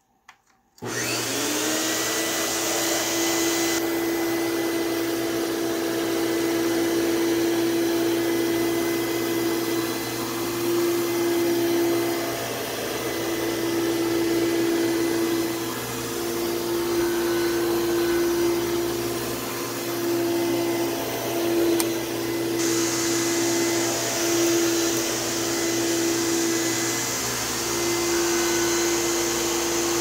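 Nilfisk Advance PowerOne 12 (Lindhaus-design) upright vacuum switched on about a second in, its motor spinning up with a rising hum. It then runs steadily with a humming note and a high whine, the note wavering slightly as the vacuum is pushed back and forth over carpet.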